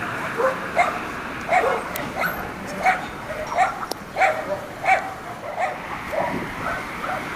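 A dog barking over and over, about one bark every two-thirds of a second, over a steady background hiss. A couple of sharp cracks come in between the barks.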